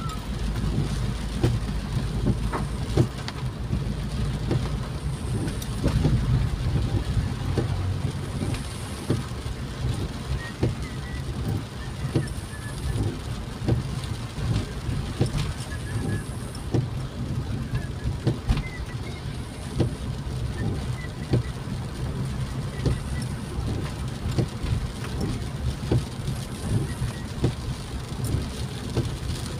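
Inside a car's cabin in heavy rain: a steady low rumble of the engine and tyres on the wet road, with rain tapping on the roof and windshield as many small ticks.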